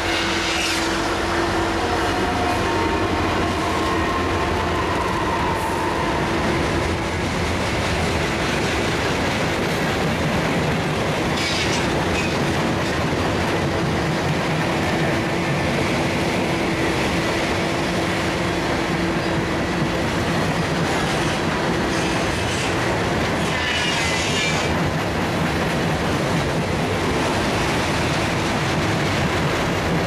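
Freight train rolling past: a diesel locomotive at the start, then a long string of open-top freight cars, with steady wheel-on-rail rumble and clickety-clack and a steady humming tone. Short high-pitched squeals or screeches come twice, about 12 and 24 seconds in.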